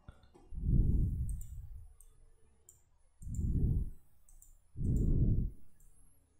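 Computer mouse clicks, several faint short clicks scattered through, with three low muffled rumbles of about a second each that are the loudest sounds.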